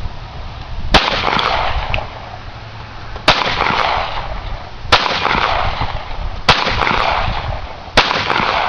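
Five single gunshots, spaced about one and a half to two seconds apart, each followed by about a second of echo that dies away.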